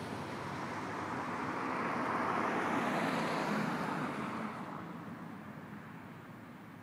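A vehicle passing by: a rushing noise that swells to its loudest about halfway, then fades away.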